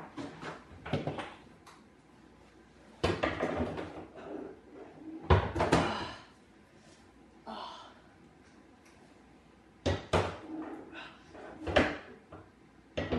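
A large flat-screen TV being lifted and fitted onto a metal wall-mount bracket: a string of separate clunks, knocks and scrapes, the loudest a little under halfway through.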